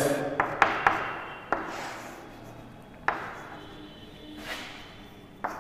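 Chalk on a blackboard as it writes: a handful of sharp taps, spaced a second or more apart, with softer scratching strokes between.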